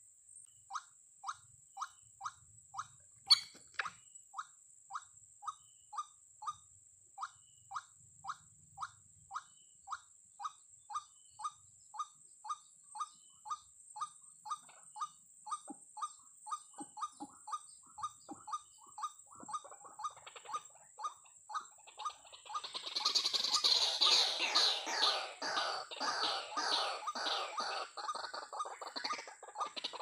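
White-breasted waterhen calls: one short, monotonous note repeated about twice a second, then about two-thirds of the way through a louder, dense run of overlapping calls. A faint steady high whine runs underneath, and there is a single sharp click about three seconds in.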